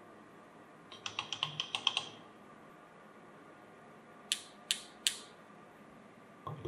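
Light metallic clicks: a quick run of about nine in a second, then three single sharp clicks about half a second apart, from small steel hand tools being handled.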